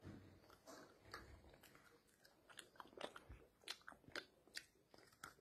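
Faint biting and chewing of a milk-chocolate Easter egg shell, with small crunches and clicks scattered through, more of them in the second half.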